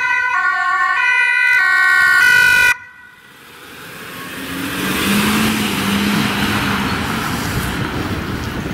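Ambulance two-tone siren alternating between a high and a low pitch, cutting off suddenly about three seconds in. Then the ambulance's engine and tyres swell as it drives past and slowly fade.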